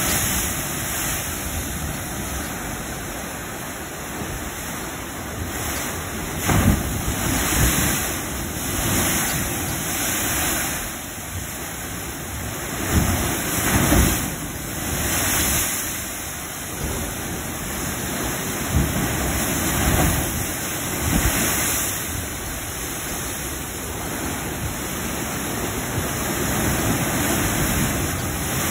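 Heavy waves surging in and crashing against the foot of a layered rock cliff, sending up spray: a continuous rushing of churning water, with louder deep crashes every several seconds as bigger waves strike.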